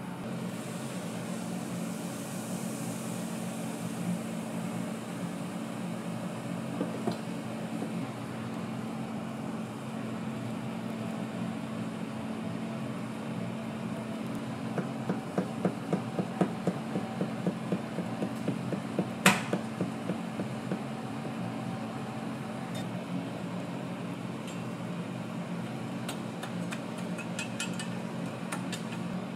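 Steady low mechanical hum of kitchen equipment at a crepe stall. Midway, a run of quick knocks about three a second lasts some six seconds, with one sharper click among them.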